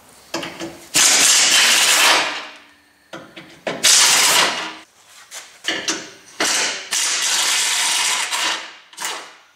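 Pneumatic air ratchet running in several stop-start bursts, the longest about two seconds, as it spins skid plate bolts out.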